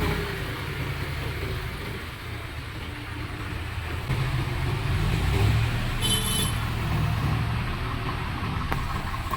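Heavy diesel engine of earth-moving machinery running steadily, getting louder about four seconds in. A short high-pitched tone sounds about six seconds in.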